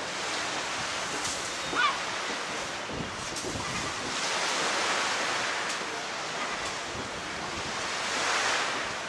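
Small waves breaking and washing on a shingle beach, the surf swelling twice, with wind on the microphone. A brief high wavering call cuts in about two seconds in.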